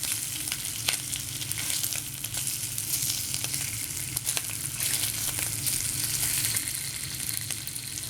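Rashers of bacon frying in a pan: a steady sizzle with scattered crackles and pops of spitting fat.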